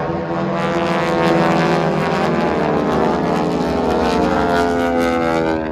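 Aircraft engines droning steadily with a strong pitched hum, sinking slightly in pitch toward the end.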